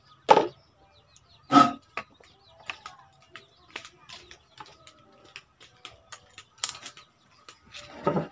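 Two loud knocks about a second apart, then quieter clicks and a clatter near the end, as gear is handled on a wooden shooting bench. Birds chirp faintly.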